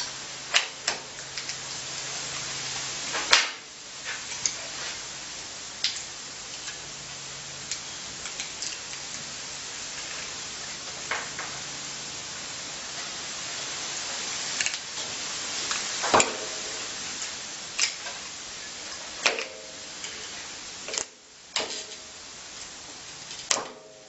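Scattered clicks and knocks of wires, cable leads and small tools being handled on a workbench, the loudest about three seconds in, over a steady hiss. A faint low hum comes and goes in the first half.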